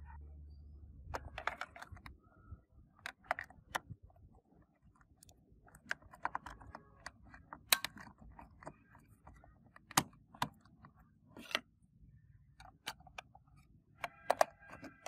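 Irregular plastic clicks and knocks from handling a small portable radio: batteries being set into its back battery compartment, then the plastic battery cover pressed into place, with a quick cluster of clicks near the end.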